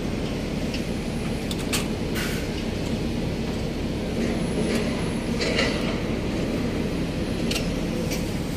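Steady low rumble of construction machinery running, with a few short clicks and brief rustles over it.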